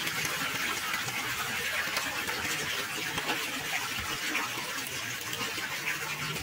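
Rainwater running across a stony road, a steady rushing hiss full of small crackling splashes.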